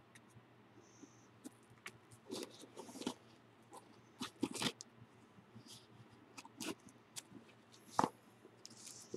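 Scissors cutting through packing tape and cardboard on a parcel: irregular crisp snips, scrapes and crinkles, with a sharper crack about eight seconds in.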